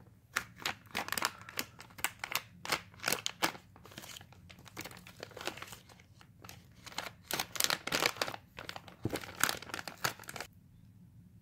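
Crinkly plastic toy packaging being cut with scissors and handled: a run of sharp crackles and rustles that stops about ten and a half seconds in.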